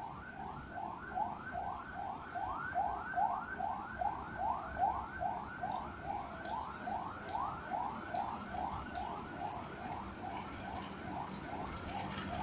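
An electronic warning siren repeating quick rising whoops, about three a second. About two-thirds of the way in, a faint steady hum, the approaching diesel locomotive, joins underneath.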